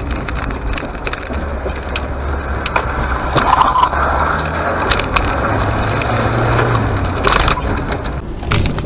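A car driving, heard from a dashcam inside the cabin: steady engine and tyre noise with frequent sharp knocks and rattles.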